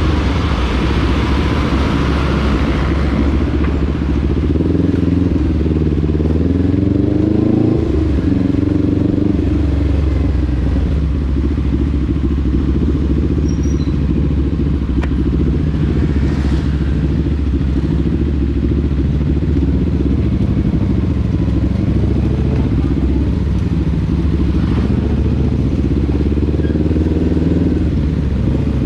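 Motorcycle engine running steadily under way, its pitch rising and falling a few times with the throttle.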